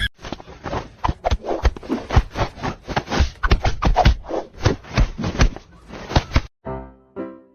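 Irregular scratching and tapping, several a second, then a sudden cut near the end to piano music.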